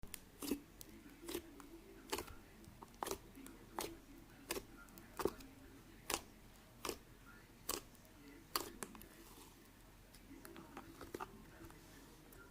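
Slime being pressed and worked by hand, making sharp popping clicks about once every 0.8 seconds, which turn softer and more scattered near the end.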